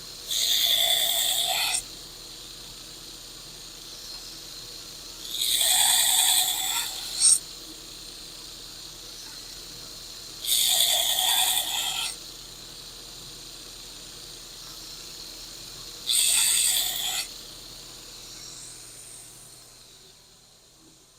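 A power grinder runs steadily while a small steel knife blank is pressed to it in four passes of about a second and a half each, giving a gritty grinding hiss with each pass. This is grinding a small bevel into the end of the blade.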